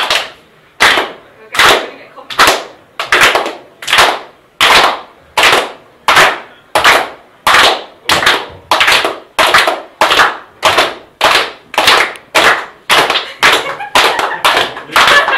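A group clapping in unison in a steady slow rhythm that gradually speeds up, each clap a sharp crack with a short tail of room echo.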